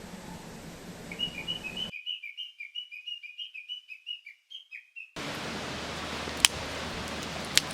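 A small songbird sings a quick run of short, repeated chirps, about four a second, for several seconds. It then cuts off suddenly to a steady rushing hiss, broken twice by a sharp crack.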